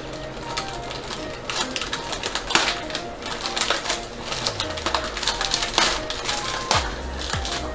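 Plastic film wrapper of an Oreo cookie pack crinkling and crackling in irregular bursts as it is peeled open by hand.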